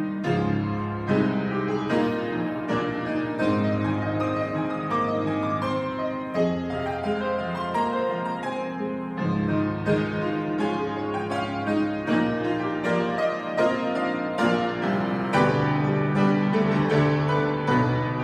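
Instrumental piano music: a continuous flow of struck notes and chords over a moving bass line.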